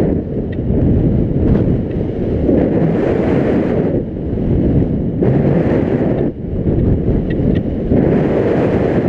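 Wind buffeting a helmet camera's microphone on a fast downhill ski run through deep powder, loud and rising and falling every second or two.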